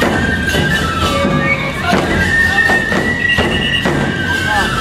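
Nebuta bayashi festival music: high bamboo flutes playing a held, piping melody over steady taiko drum beats.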